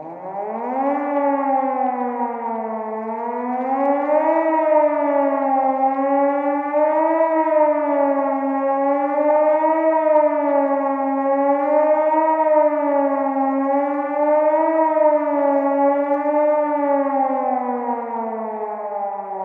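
Civil defence warning siren winding up to a long wail whose pitch wavers up and down about every two and a half seconds, then starting to wind down near the end.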